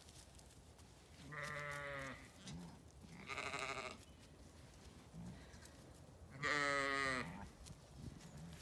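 Zwartbles sheep bleating: three separate wavering calls, each under a second long, the second higher-pitched and the third the loudest.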